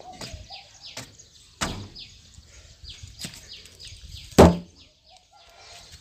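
A few light knocks on the body of a Maruti Suzuki Dzire, the loudest about four seconds in, tapping the car to test the anti-theft alarm's shock sensitivity. Birds chirp faintly throughout.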